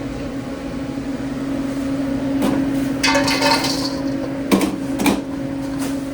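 Kitchen work sounds over a steady equipment hum: sharp knocks of utensils or food being struck, with a scraping clatter a little after the halfway point and two knocks close together near the end.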